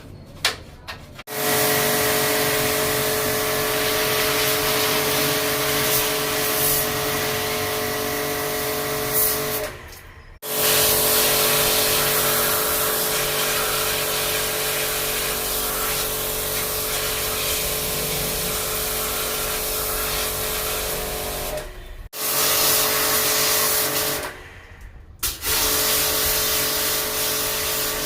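Electric pressure-washer (jet spray) pump running with a steady motor whine and the hiss of water spraying, as it washes out a washing machine during a wet service. It starts about a second in and cuts off and restarts several times.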